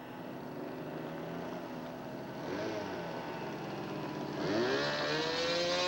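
Radio-controlled model aircraft engine running steadily in flight, growing louder and rising in pitch about four and a half seconds in as the plane draws near.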